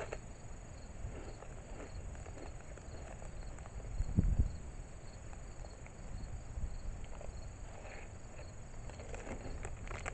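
Wind buffeting the microphone with a low rumble, with one strong gust about four seconds in. Faint, even insect chirping runs underneath.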